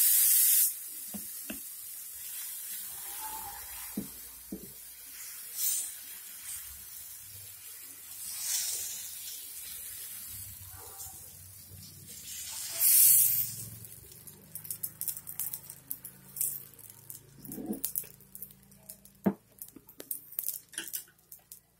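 Dosa batter sizzling on a well-heated tawa. It hisses loudly as it is poured, then in bursts as the ladle spreads it, loudest a little past halfway. In the last several seconds it settles into a fine, irregular crackle as the thin dosa crisps.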